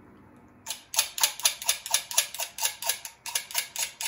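Rapid, evenly spaced clicking, about five clicks a second, starting under a second in, with a brief break about three seconds in.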